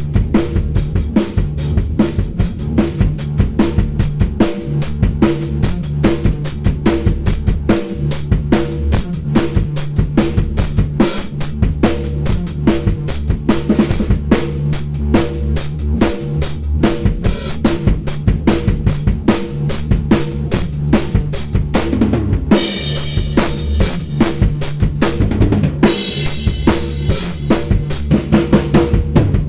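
Drum kit improvisation: rapid, dense kick, snare and tom strokes over a backing track with steady low bass notes. Cymbals ring out continuously through the last several seconds.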